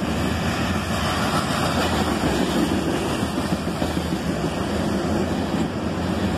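Freight cars of an ore train rolling past at speed: a steady low rumble of steel wheels on rail.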